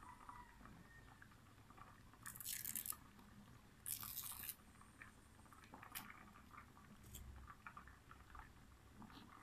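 Two short, rasping scrapes about a second and a half apart, with scattered small clicks after: a wooden spatula scraping against a hard disc of gula melaka (palm sugar) held over the pot.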